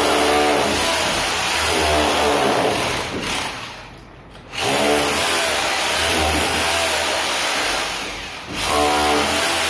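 226 rotary hammer drill hammering its bit into a brick wall, cutting out the recess for a metal electrical box. It runs loud and pulsing, winds down about three and a half seconds in, starts again a second later, and eases off briefly once more near the end.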